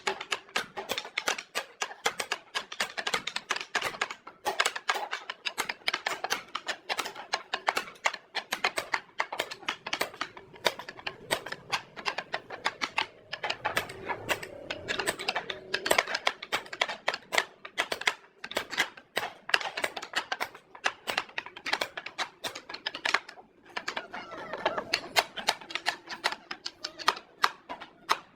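Rapid, irregular clicking and tapping, several sharp strikes a second, over a faint steady hum.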